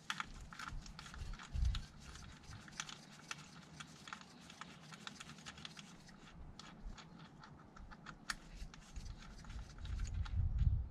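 Faint, irregular clicking of a ratchet driving a 5 mm Allen bit to undo a small bolt on a car's gearbox oil cooler. The clicks come thick at first and thin out in the second half.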